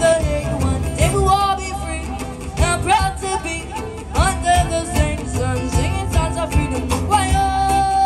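Small live band playing a song: acoustic guitar and electric bass under a sung melody, with one long held note near the end.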